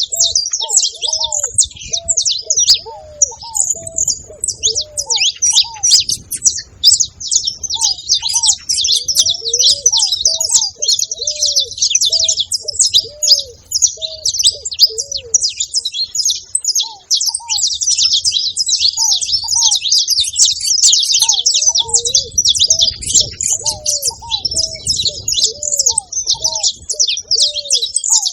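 Saffron finch song: a dense, continuous stream of rapid high chirps and trills. Under it, a lower-pitched bird repeats short arched notes, about two a second, in three runs: at the start, around the middle and near the end.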